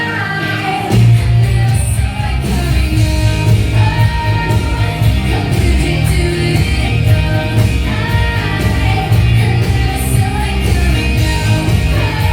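A song with singing, played loud; a heavy bass beat comes in about a second in and carries on under the vocal.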